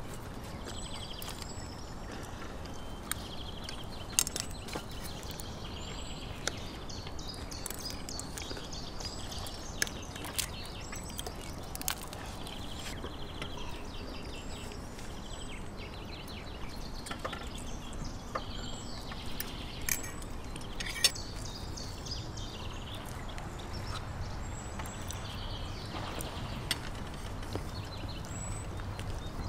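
Small birds chirping in short repeated calls throughout, over a steady low background noise, with scattered sharp clicks of forks and knives against plates.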